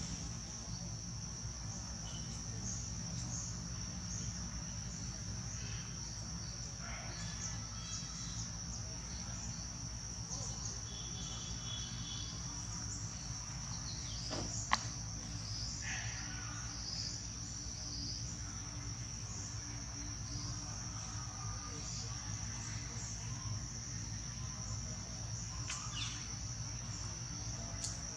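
Steady, high-pitched drone of insects in tropical forest, with a low rumble underneath and a few faint chirps. A single sharp click sounds about halfway through.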